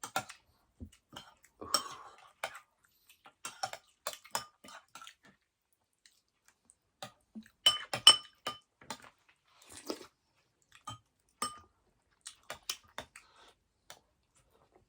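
Close-up eating sounds: chewing and small mouth clicks, with a spoon clinking against a bowl now and then, loudest in a quick run of clinks just past the middle.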